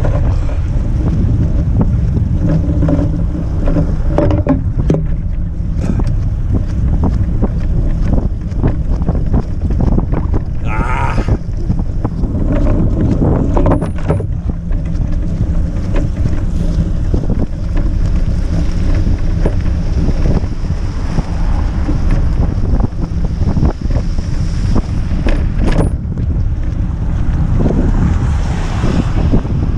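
Wind buffeting the action camera's microphone in a steady low rumble while a front-box cargo bike rides along a wet, slushy street, with a few short clicks and rattles. A vehicle passes near the end, adding a swell of noise.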